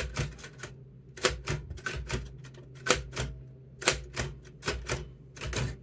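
Keys of a Royal manual typewriter struck one at a time, each a sharp clack, in an irregular, unhurried rhythm with short pauses and occasional quick pairs of strokes, as someone types slowly while finding their way around the keyboard.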